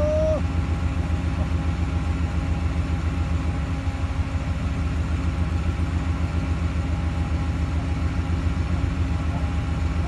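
A vehicle engine idling steadily, a low even hum. Right at the start comes one short rising whistle-like note.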